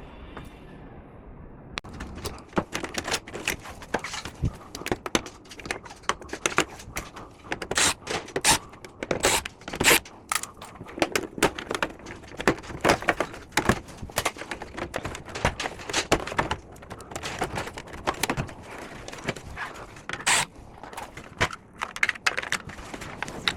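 Air-conditioner parts being handled and taken apart for cleaning: irregular clicks, knocks and scrapes of handled parts, starting about two seconds in and going on unevenly.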